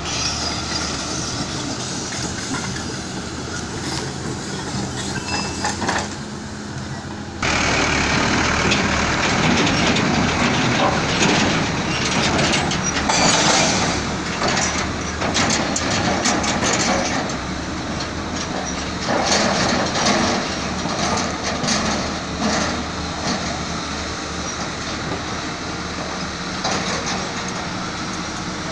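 Diesel engines of a farm tractor and a Caterpillar 320D excavator running, with irregular clattering knocks. The sound gets abruptly louder about seven seconds in.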